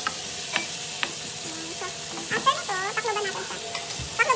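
Chicken pieces frying in oil with onion and garlic, sizzling steadily as a metal spatula stirs them and clicks against the pan a couple of times early on. A short voice-like sound, the loudest part, comes a little past the middle.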